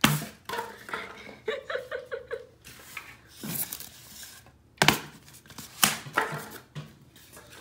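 Styrofoam pieces being struck and broken with hand chops: sharp cracks and snaps, the loudest at the very start and twice about five and six seconds in, with softer crunches between.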